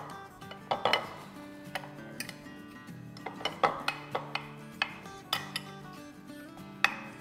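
Small stainless-steel measuring cup pressing cracker crumbs into a glass baking dish, its metal clinking against the glass in irregular taps, about a dozen in all. Soft background music runs underneath.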